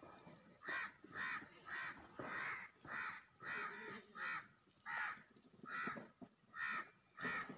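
A crow cawing over and over: about eleven short calls in a steady run, a little over half a second apart.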